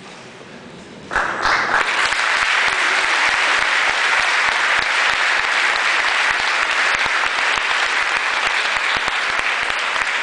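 Audience applauding: a dense round of clapping that starts suddenly about a second in and holds steady.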